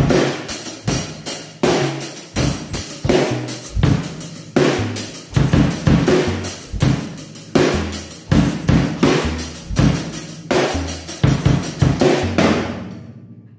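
Acoustic drum kit played along to a pop song: a steady beat of bass drum, snare and cymbals, stopping near the end with the cymbals ringing out.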